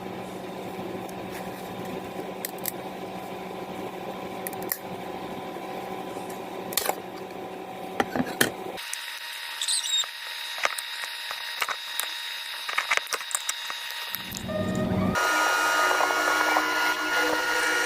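Workshop assembly noises: scattered clicks and taps of tools and parts being handled over a steady background hum. The background changes abruptly twice and is louder with steady tones near the end.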